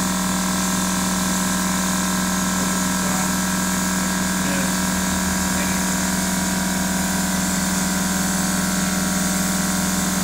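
Gravity-fed paint spray gun spraying: a steady hiss of atomizing air, over a steady machine hum with a held low tone.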